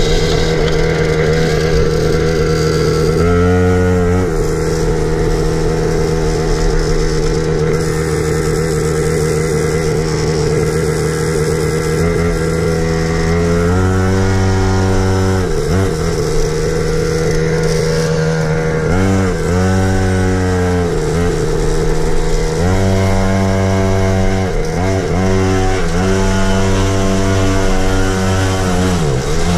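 Chinese pocket minibike's small engine running while being ridden, holding a steady note with its pitch rising and falling several times as the throttle is opened and closed.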